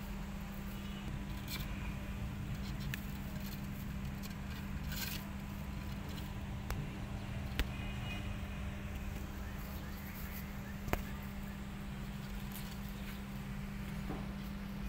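Kittens scrambling over a terracotta flowerpot: faint scuffling and a couple of sharp knocks, over a steady low hum.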